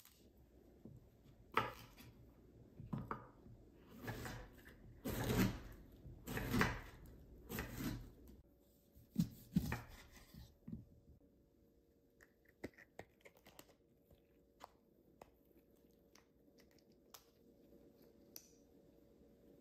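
A chef's knife slicing through a pear on a wooden cutting board: about seven drawn-out cuts, then a few sharper, shorter cuts through a lemon around nine to ten seconds in, followed by faint light clicks of handling.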